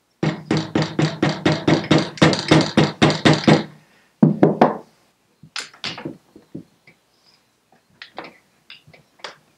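A soft-faced hammer tapping rapidly on a BSA Bantam engine's crankcase, about five blows a second for three and a half seconds, to drive the engine into tight frame mounts, which the owner puts down to fresh paint or a tight fit. It is followed by a couple more knocks and then lighter clicks and knocks as the engine is handled.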